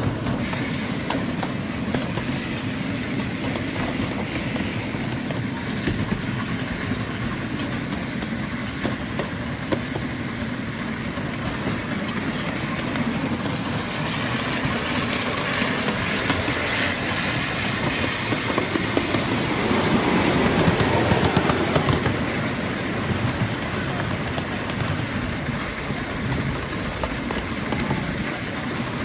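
Miniature steam locomotive running along the track, heard from just behind the engine: wheels rolling on the rails under a steady hiss of steam, the hiss growing stronger about halfway through.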